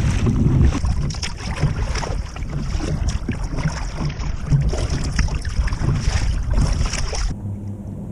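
Wind buffeting the microphone over water sloshing and splashing against a kayak hull on a choppy sea. Near the end it cuts off abruptly, leaving a quieter steady low hum.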